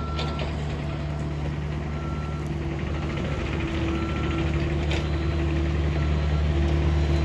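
A heavy work vehicle's engine running steadily and slowly growing louder, with a backup alarm beeping about once a second as it reverses.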